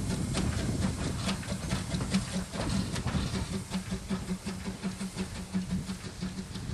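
Steam train hauled by QR PB15 class locomotive 448, running with a rapid, even beat and steam hiss.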